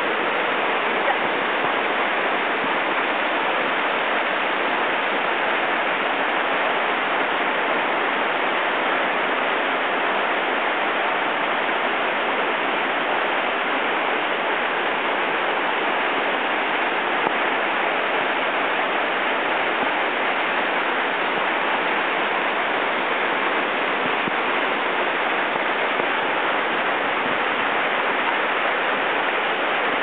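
Waterfall, its white water crashing onto rocks: a steady, even rush of water that holds unchanged throughout.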